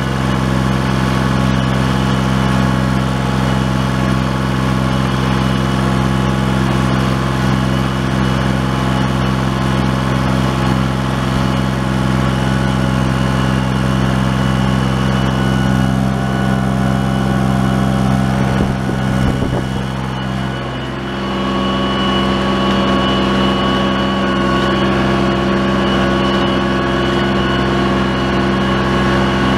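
1981 John Deere 1050 tractor's three-cylinder diesel engine running steadily under load while pulling moldboard plows through the soil. Its note dips briefly about two-thirds of the way in, then steadies again.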